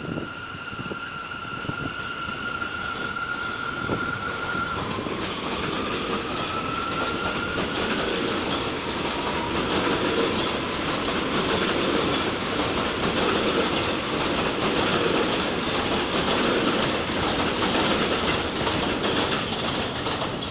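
New York City Subway A train (R46 or R179 cars) accelerating, its traction motors giving a whine that rises in pitch over the first several seconds. Wheel-on-rail rumble and clickety-clack grow steadily louder behind it.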